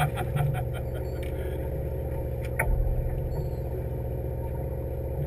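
Fishing boat's engine running steadily with a low, evenly pulsing drone. A single knock with a low thump comes about two and a half seconds in.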